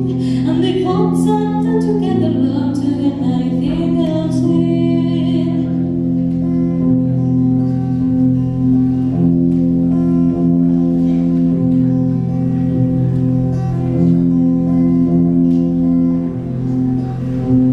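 Female singer performing a ballad over accompaniment of held chords; her voice drops out about five seconds in and the accompaniment carries on alone.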